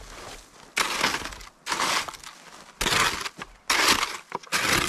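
Footsteps crunching in snow: five slow, even steps about a second apart.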